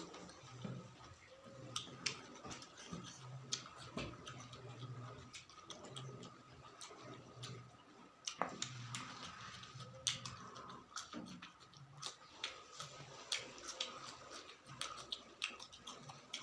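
Close-miked chewing and mouth sounds of someone eating: a run of sharp wet clicks and small crunches over a low pulsing sound that repeats about every half second with each chew.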